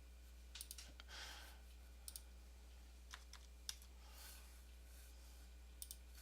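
Faint clicks from a computer mouse and keyboard, several coming in quick pairs, over a steady low hum.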